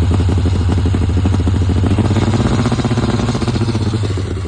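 Trike engine running on a held throttle with its mass air flow sensor unplugged, a fast even beat of firing pulses; it picks up a little past the middle, then sags near the end. It runs this way because it will not start at all with the sensor plugged in and will not idle without it.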